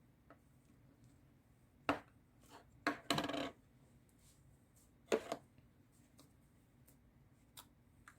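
Scattered clicks and a short clatter of small hard objects being handled or set down, a few seconds apart.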